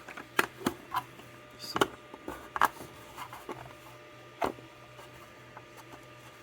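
Scattered sharp clicks and knocks of hard printed plastic being handled and fitted: a freshly 3D-printed belt cover going onto a printer motor. A faint steady low hum runs underneath.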